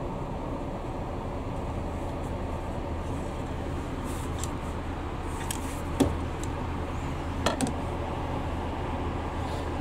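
Folding tray table being pulled out of a train seat's armrest: one sharp clack about six seconds in, then a quick double clack a second and a half later as the hinged table unfolds. Under it runs the steady low hum of the stationary E653 series train car.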